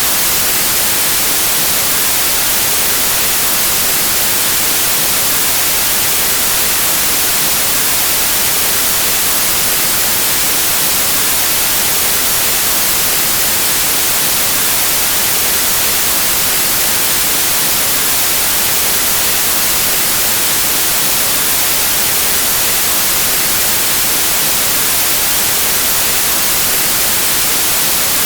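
Steady white noise: an even, unbroken hiss with no tones or events in it.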